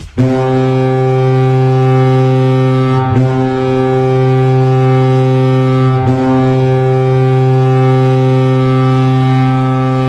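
Chippewa Steel's hockey goal horn sounding one long, steady, low blast of about ten seconds.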